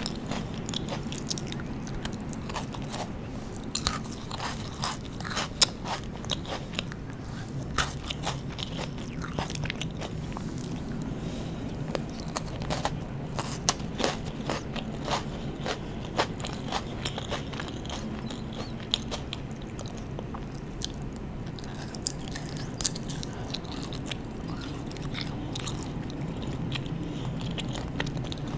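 Close-miked chewing of crunchy strawberry-coated Pocky biscuit sticks: many sharp, crackly crunches that come thick and fast through the first half, then thin out to occasional crunches with softer chewing.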